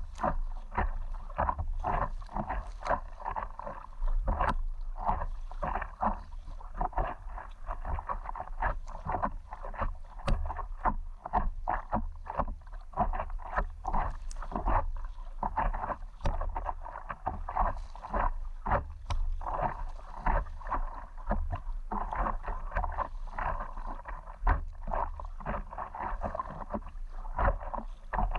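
Water splashing and sloshing against an inflatable stand-up paddleboard as it is paddled, in many quick irregular splashes throughout, over a steady low rumble.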